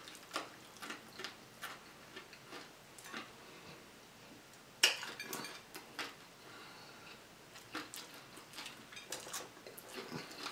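Quiet scattered clicks and crackles of crispy fried croaker being picked apart by hand, with a sharper click about five seconds in.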